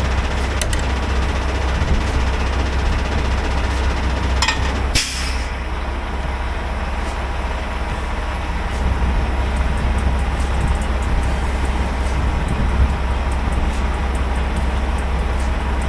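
Semi truck's diesel engine idling steadily, with a short hiss of air about five seconds in and a few faint clicks.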